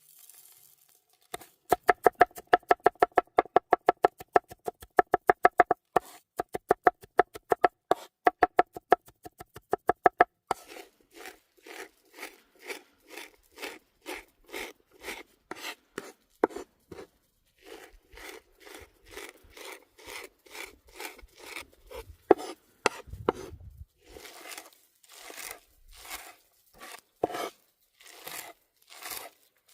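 A knife chopping fast on a cutting board: sharp, evenly spaced strikes with a ringing pitch, about five a second, that stop about ten seconds in. Slower rasping strokes follow, about two a second, like a blade scraping or slicing.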